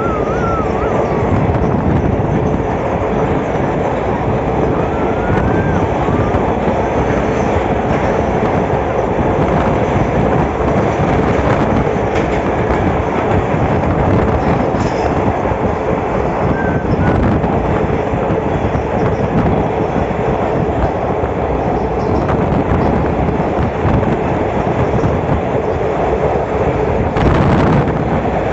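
A moving passenger train running at speed: a steady loud rumble and rattle of the wheels on the rails, heard at a carriage window.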